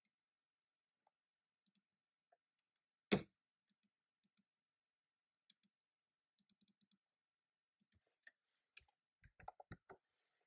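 Sparse, faint clicking keystrokes on a computer keyboard, with one louder knock about three seconds in and a quick run of clicks near the end.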